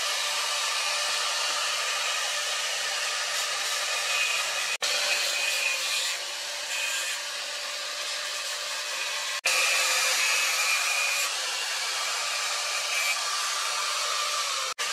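Steady whirring, hissing machine noise in a workshop, with a faint high whine, broken by abrupt cuts about every five seconds.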